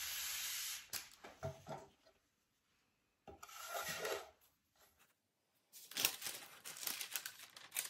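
Baking parchment is unrolled and slid across a stone worktop. There is a steady rush of paper for under a second at the start, then bursts of rustling and rubbing as the sheet is handled and a metal loaf tin is set on it about three seconds in. Scratchy paper rustles come again near the end as the sheet is smoothed flat.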